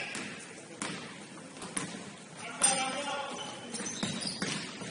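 Basketball bouncing on a gym court three times, about a second apart, the third the loudest. Players' voices call out in the echoing hall after it.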